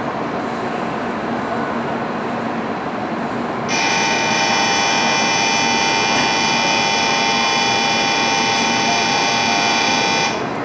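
Shinkansen platform departure bell ringing: a steady, high electronic ringing that starts suddenly about four seconds in, holds for about six seconds and stops abruptly, signalling that the train's doors are about to close. Under it, the steady hum of the station.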